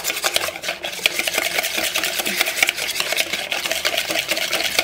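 Wire whisk beating a thick yogurt-and-spice marinade in a plastic mixing bowl: a rapid, steady run of clicking, scraping strokes as the wires hit the bowl.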